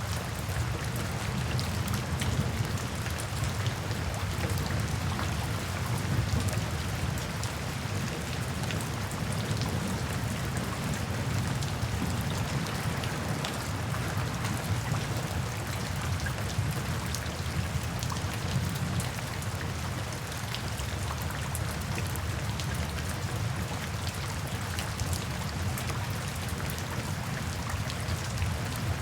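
Steady rain falling on a surface, an even hiss with many separate drop hits scattered through it.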